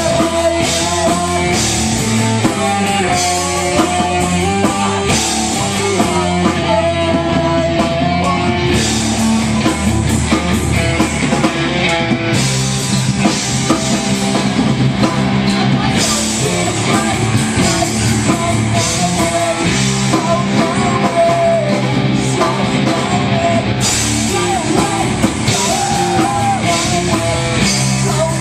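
Live rock band playing loud and steady, with electric guitar and a drum kit.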